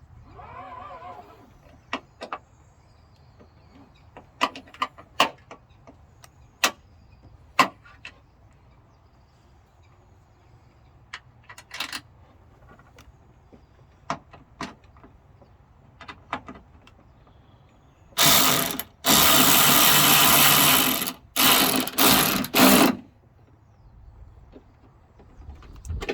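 Scattered sharp clicks and knocks of hand work on car parts, then a power tool running loud in several short bursts near the end.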